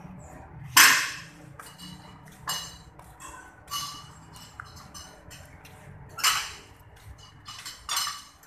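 Irregular metallic clinks and knocks of hand tools against metal parts during a brake job: about eight sharp strikes, each with a short ring. The loudest comes about a second in.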